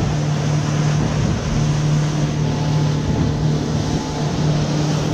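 Motorboat engine running steadily at cruising speed, a constant low drone, over the rushing hiss of water and spray along the hull.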